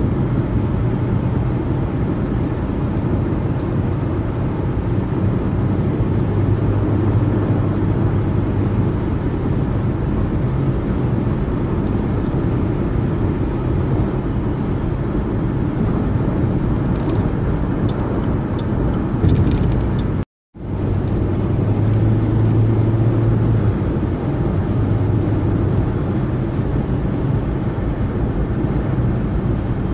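Car driving on a freeway: steady tyre and engine road noise with a low hum. The sound cuts out completely for a moment about twenty seconds in.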